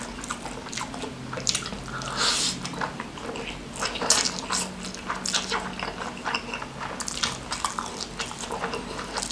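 Close-miked wet mouth sounds of a person eating noodles and rice by hand: sticky chewing, lip smacks and wet clicks, with short hissy stretches as noodles are drawn into the mouth.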